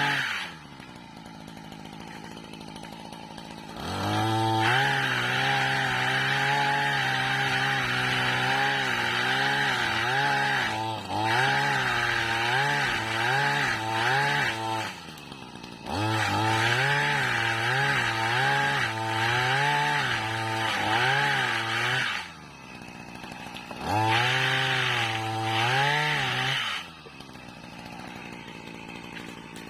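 Small engine of a motorized palm-pruning pole saw (mesin egrek) dropping to idle, then revving up hard three times for several seconds each, its pitch wavering while at full revs, and falling back to idle between and after.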